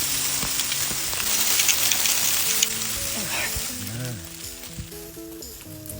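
A steady sizzling hiss that starts abruptly and fades away after about five seconds, with background music underneath.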